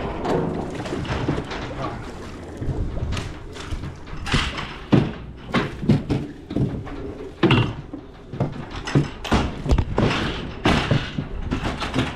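A run of irregular knocks and thumps, most likely sheep and their hooves clattering against a livestock trailer as ewes are loaded into it. A low rumble runs underneath.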